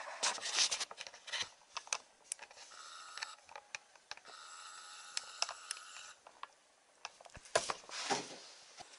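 Felt-tip pen tracing around a half-hull model on paper: the nib scratches and squeaks on the paper in short strokes, with two longer steady squeaks in the middle, and small clicks and taps of the pen and hull on the wooden workbench. Near the end there is a brief rustle and knock as the hull and pen are lifted.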